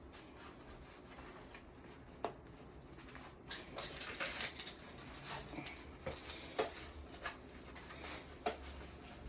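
Duty belt gear being handled: faint rustling with scattered small clicks and knocks. There is one sharp click about two seconds in, and the handling grows busier from a few seconds in.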